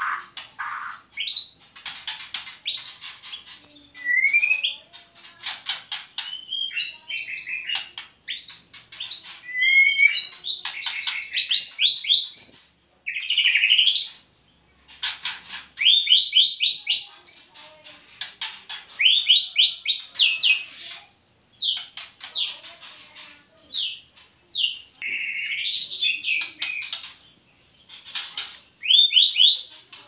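White-rumped shama (murai batu) singing a long, varied song in full voice. It gives phrases of rising whistles, quick runs of repeated notes and harsh chatter, with brief pauses between phrases.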